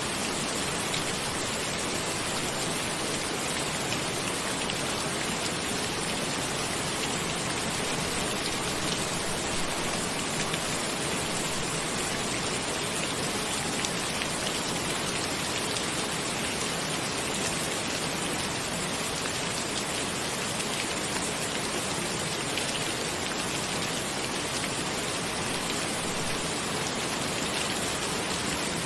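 Steady rain falling, an even, unbroken hiss of countless drops with no change in strength.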